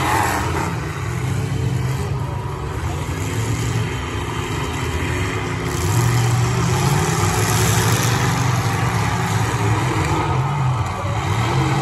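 Demolition-derby pickup truck engines running and revving, the engine note rising and falling several times.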